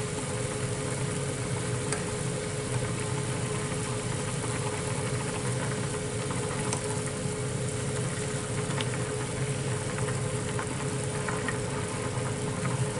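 Kitchen range hood fan running with a steady drone and a held hum, which the owner puts down to its uncleaned rotating fan (the filter itself is clean). A ladle clinks faintly against the saucepan a few times as the pot is stirred.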